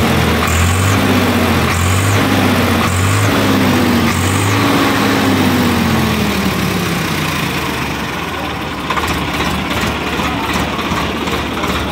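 Swaraj 855 FE tractor's three-cylinder 3478 cc diesel engine, fitted with the revised silencer. It is revved up and down in about four swells, then winds down over a couple of seconds to a steady idle.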